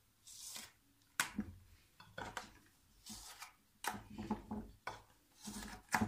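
Red silicone mould being flexed and rubbed as heart-shaped sweets are pushed out of it, a series of short rubbing scrapes with a few light clicks.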